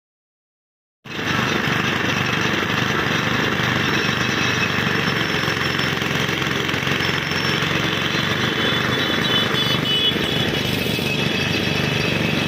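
Small engine driving a roadside sugarcane juice crusher, running steadily and loudly as its geared rollers turn. The sound starts abruptly about a second in.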